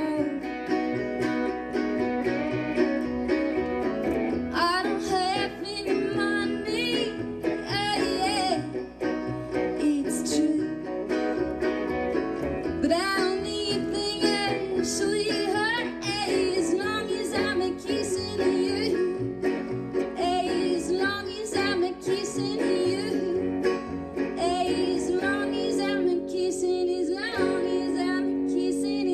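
Live band music from two guitars and a plucked upright double bass playing a country-flavoured song.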